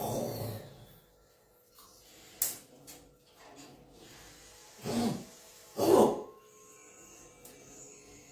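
A woman snoring: three snores, one at the start, then two close together about five and six seconds in, the last the loudest, with a short sharp click in between.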